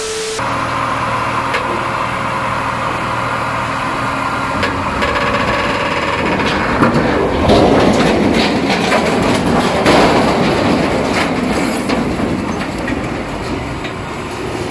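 A brief TV-static glitch sound, then a large mobile crane's engine running, swelling into a loud crashing and grinding noise about halfway through as the crane tips over.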